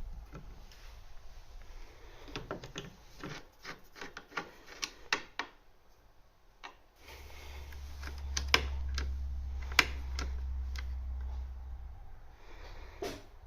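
Scattered sharp knocks and clicks of things being handled, then a low rumble lasting about five seconds with a couple of sharp knocks over it.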